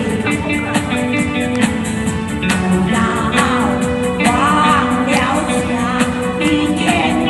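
A voice singing a pop song over a backing track with a steady beat.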